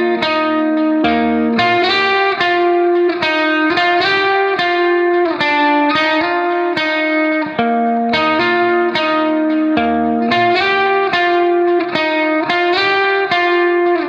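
Background music: a plucked guitar playing a continuous melody of notes in quick succession.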